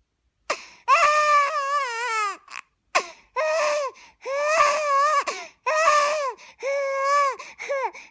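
Exaggerated, mock wailing and sobbing in a high-pitched voice: about seven long drawn-out cries with wavering, falling pitch, broken by short catches of breath.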